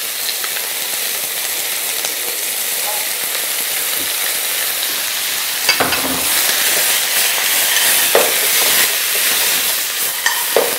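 Cabbage, clams and squid sizzling as they are stir-fried over high heat in a frying pan and stirred with a wooden spatula. The sizzle grows louder about six seconds in, as the raw squid goes in, with a few sharp clacks against the pan.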